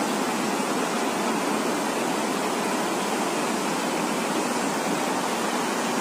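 Steady, even rush of water: floodwater flowing during heavy flooding.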